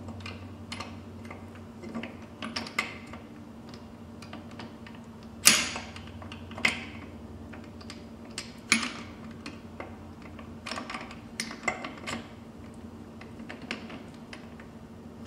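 Metal gearbox parts clicking and knocking as the reverse gear and its pin are fitted into an aluminium transmission case. There are irregular small clicks and a few sharper metallic knocks in the middle.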